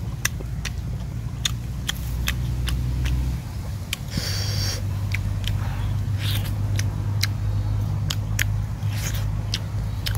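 Close-up eating sounds of a man biting into and chewing whole roasted chicken: a string of short, sharp mouth clicks and crunches, a couple a second, over a steady low hum.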